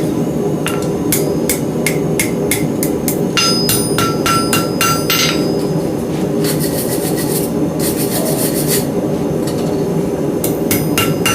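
Hand hammer striking hot steel on an anvil, about two ringing blows a second, to shape a beam hook. There is a pause in the middle with two short spells of rapid light ticking, and the blows start again near the end.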